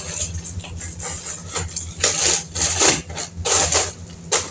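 Plastic snack wrappers and bags crinkling in a series of short rustling bursts as packaged snacks are handled, over a steady low hum.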